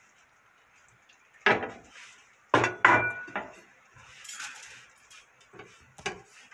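Ceramic plate set down on a wooden cutting board among other kitchenware: a handful of separate knocks and clinks, one about three seconds in ringing briefly.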